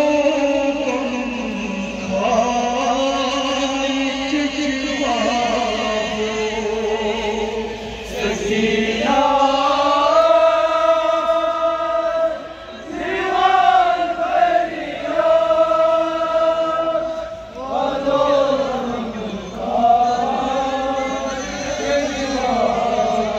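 Male reciter chanting a noha, a Shia mourning lament, in long held melodic phrases that rise and fall, with short breaks between phrases.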